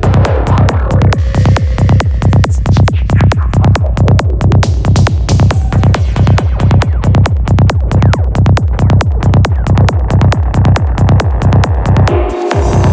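Progressive trance music: a fast, steady electronic beat with heavy pulsing bass. The bass cuts out briefly near the end.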